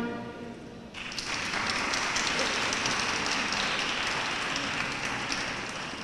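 A brass ensemble's final chord rings out and fades in the first moment. About a second in, a small seated audience breaks into applause, which gradually thins toward the end.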